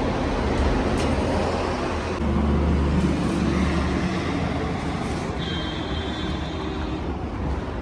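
Road traffic with a motor vehicle engine running, a steady low rumble. A thin high tone is held for about a second and a half late on.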